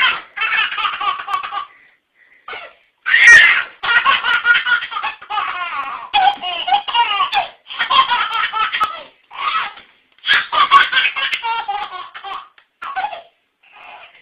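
A baby laughing in long, loud bouts, breaking off briefly a few times.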